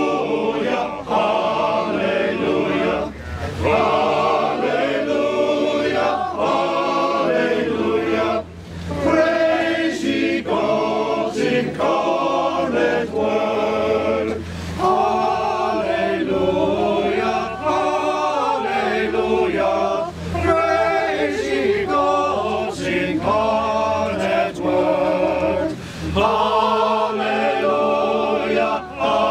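A group of voices singing a Christmas carol together, in phrases of about five or six seconds with brief breaks between them.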